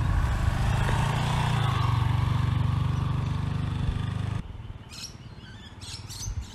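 Yamaha XT250's single-cylinder four-stroke engine running at low revs as the bike is ridden slowly through a cone slalom, its note rising slightly about two seconds in. The engine sound cuts off suddenly about four and a half seconds in, leaving a much quieter background.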